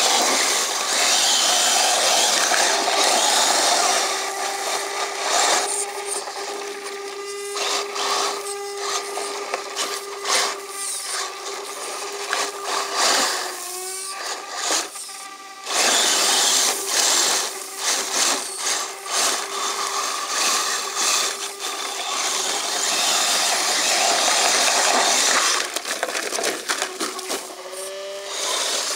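Radio-controlled scale truck's electric motor and geared drivetrain whining under load as its tyres spin and spray sand and grit. The spray is loudest in two spells, at the start and again in the second half, and the motor's pitch rises and falls around the middle and again near the end.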